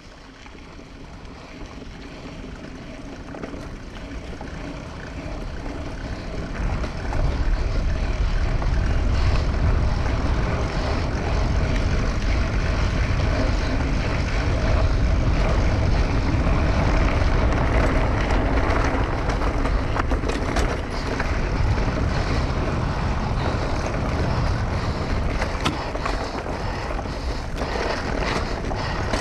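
Mountain bike ridden fast over a sandy, rooty dirt track: wind buffeting the mounted camera's microphone and the tyres rumbling over the ground, with scattered sharp rattles and knocks of the bike over bumps. The noise grows louder over the first seven or eight seconds and then stays loud.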